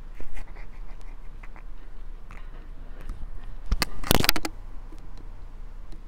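A parrot in a dryer vent opening, clicking and scraping with a short run of sharp crunching sounds, the loudest cluster about four seconds in, as it chews at the vent.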